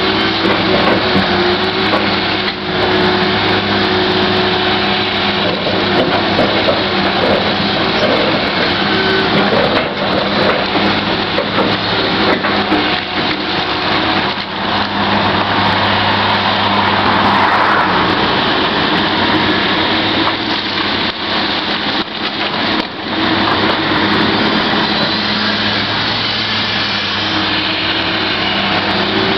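Komatsu PC1250 hydraulic excavator's big diesel engine running under load as it digs and loads a dump truck: a loud, steady deep drone with a few brief dips, and scattered sharp clicks and knocks.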